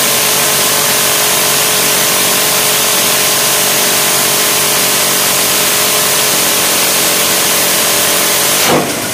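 Minigun, a rotary multi-barrel machine gun, firing one long continuous burst as a dense, unbroken buzz. It cuts off near the end with a brief falling whine as the barrels spin down.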